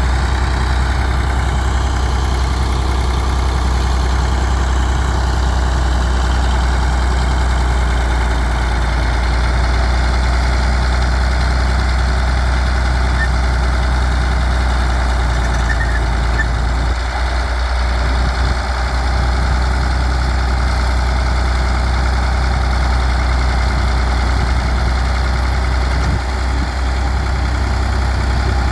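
International Harvester TD24 crawler bulldozer's diesel engine idling steadily with a deep, even low rumble.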